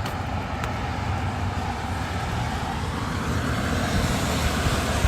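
Car driving: steady engine and tyre noise with a low hum, growing slightly louder about four seconds in.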